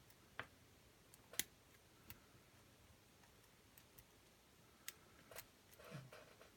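Lock pick and tension wrench working the pins inside a pin-tumbler lock: a handful of faint, sharp metal clicks at uneven intervals, the loudest about a second and a half in.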